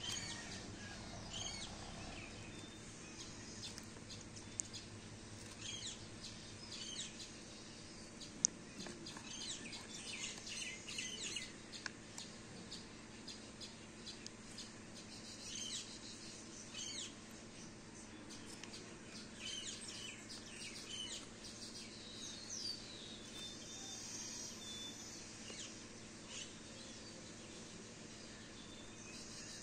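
Birds chirping in short, scattered calls, faint in the background, with two brief sharp clicks in the first third.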